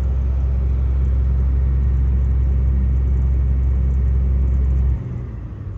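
Combine's diesel engine running with a steady low hum, which drops off sharply about five seconds in.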